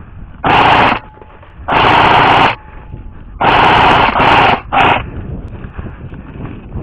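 Airsoft rifle firing five short full-auto bursts, the last three close together.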